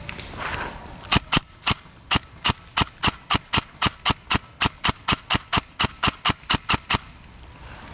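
Airsoft gun firing a long string of sharp single shots, about four a second, starting about a second in and stopping about a second before the end.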